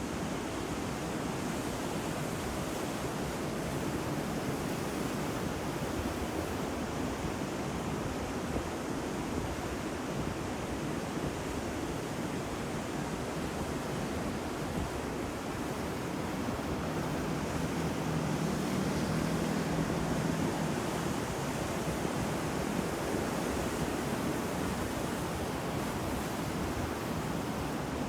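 Ocean surf: waves breaking and washing in a continuous rush, swelling a little in the middle.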